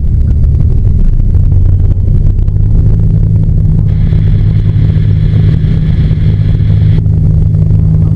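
Ikarus C42 microlight's engine and propeller at full takeoff power, a loud steady drone heard inside the cockpit during the takeoff run.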